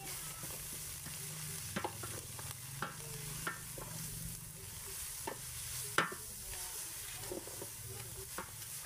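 Kale sizzling as it fries in a cooking pot while being stirred, with sharp knocks of the stirring utensil against the pot, the loudest about six seconds in.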